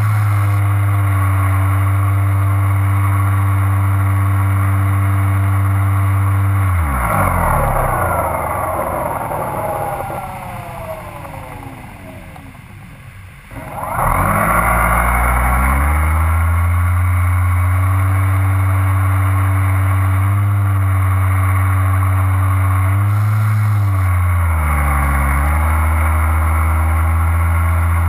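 Motor and propeller of a small low-flying aircraft, heard from on board: a steady pitched hum that is throttled back about seven seconds in, its pitch sliding down as it fades, then opened up again around fourteen seconds. Near the end there is a brief dip and recovery in pitch.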